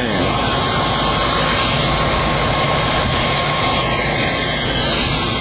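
Steady, loud rushing noise of a moving vehicle: road and wind noise while driving.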